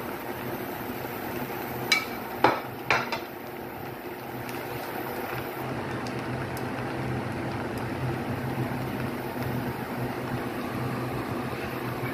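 Three sharp knocks of a slotted spatula against a granite-coated pan about two to three seconds in, then a steady sizzle of the rice cooking in the pan with a low hum underneath.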